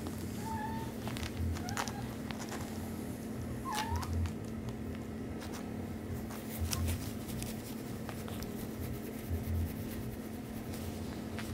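Young kitten mewing: a few short, thin mews in the first four seconds, over a steady low hum and faint rustling clicks.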